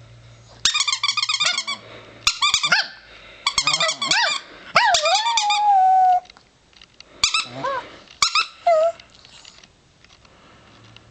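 A squeaky plush toy squeezed in quick bursts of rapid squeaks, with a chihuahua howling along: one long wavering howl that settles on a held note, then two short howls a little later.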